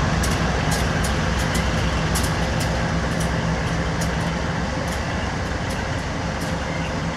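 Diesel locomotives hauling a loaded coal train past at close range: a steady low engine drone over the rumble of the train, with sharp metallic clicks of wheels over the rail, several a second, that thin out after about four seconds.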